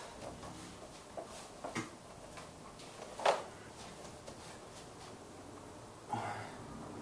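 A few light knocks and clicks as a 40 lb hex dumbbell is lifted off a padded weight bench, the loudest about three seconds in with a short ring, then a breath near the end as the row begins.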